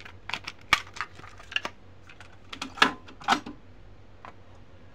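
Plastic clicks and clacks of a Technics RS-X520 double cassette deck's cassette doors being opened and shut and a cassette being handled. There are about half a dozen short, sharp clicks, the loudest pair about three seconds in.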